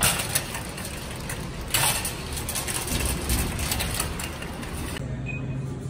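Metal wire shopping cart rattling and clanking as a cart with a jammed wheel is wrestled free and pushed, wheels rumbling on concrete, with two sharp clanks, one at the start and one about two seconds in. Near the end the rattle gives way to a steady low hum.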